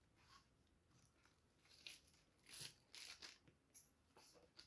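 Faint crinkling and tearing rustles of a packaging cover being opened by hand, in short irregular bursts, the loudest a little past halfway through.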